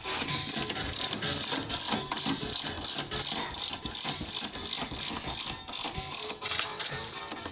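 Socket ratchet wrench clicking in quick repeated strokes, turning a fastener.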